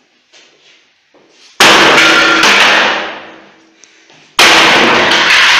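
Two loud hammer blows on a wooden plank and plywood stand, about three seconds apart, each ringing on for about a second.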